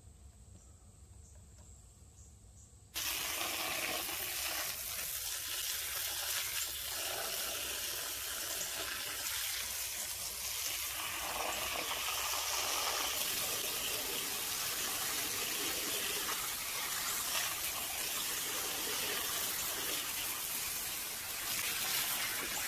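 Water running in a steady rush, starting suddenly about three seconds in: simulated rainfall being run onto a French drain to test it.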